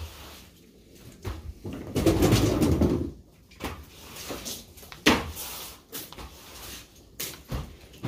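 Frogs croaking, with one loud, low call about two seconds in, among scattered clicks and knocks.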